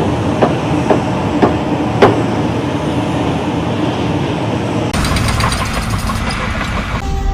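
Four sharp knocks, about half a second apart, over a steady mechanical rumble; about five seconds in the sound cuts abruptly to a different, more rhythmic background.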